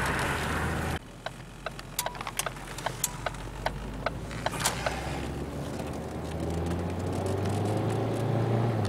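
A car driving, heard from inside the cabin. About a second in the sound changes abruptly, followed by a few seconds of irregular sharp clicks. Then the engine climbs steadily in pitch as the car accelerates up a freeway on-ramp.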